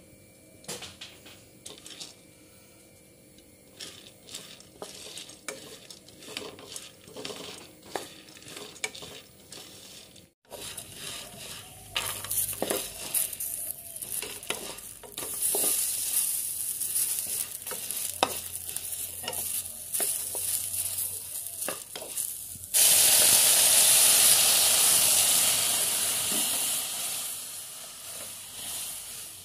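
Split chickpea lentils (chana dal) frying in oil in a metal wok: the lentils click and scrape as they are stirred with a wooden spatula, and a steady sizzle builds. About 23 seconds in, a sudden loud hiss starts as water is poured into the hot pan, then slowly dies down.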